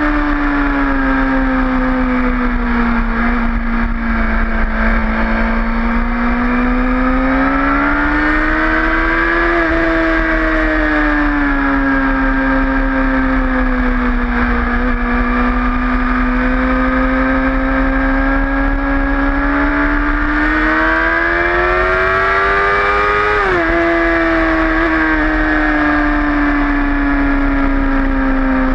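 Sport bike engine running hard at high revs, heard from the bike itself with wind rush over it. Its pitch climbs slowly to about ten seconds in, eases off, then climbs again before dropping sharply a little over twenty seconds in.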